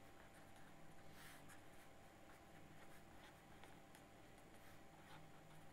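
Faint scratching of a pen writing on paper, in short strokes, over a low steady hum.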